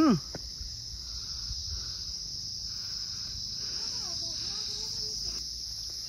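Insects (crickets or cicadas) shrilling as a steady high-pitched drone. A faint voice is heard about four seconds in.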